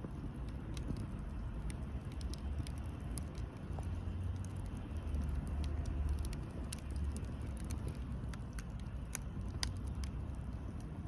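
Firewood burning, with scattered sharp crackles and pops over a steady low rumble.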